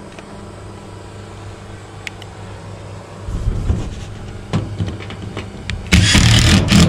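A power drill drives a self-tapping roofing screw into a corrugated steel roof panel, one loud burst of just under a second near the end. Before it come irregular knocks and rattles of the sheet metal being handled.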